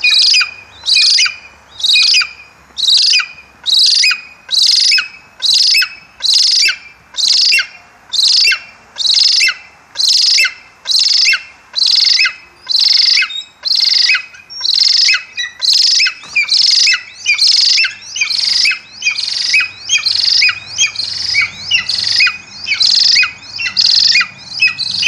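Captive golden eagle calling over and over in a steady series of high-pitched calls, a little more than one a second, each ending in a falling slur.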